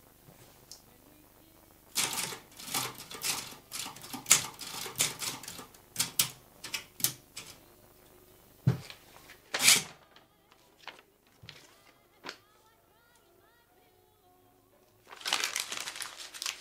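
Manual typewriter keys struck in quick, uneven runs of sharp clacks for about eight seconds, then stopping. Near the end a sheet of paper is crumpled up with a dense rustle.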